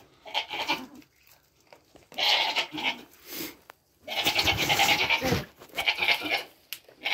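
Nigerian Dwarf goats bleating: about five calls, one of them long, about four seconds in, from the doe and her newborn kid just after the birth.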